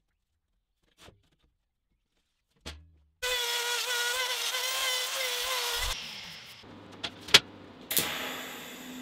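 A die grinder with a small burr runs at a high, steady whine for about three seconds, wavering slightly as it cuts into the edge of a slot in steel plate, then winds down. A few sharp clicks follow. Near the end a welding arc strikes with a crack and goes on hissing.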